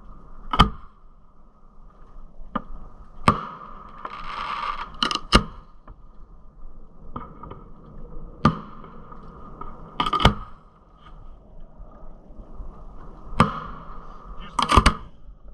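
Aerial fireworks shells firing and bursting: a string of sharp booms, about seven in all, every one to three seconds, some coming in quick pairs.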